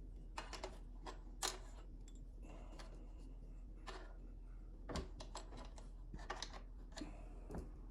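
Scattered light clicks and taps from a new chainsaw being handled while its chain is fitted and tensioned. The sharpest knocks come about a second and a half in and about five seconds in.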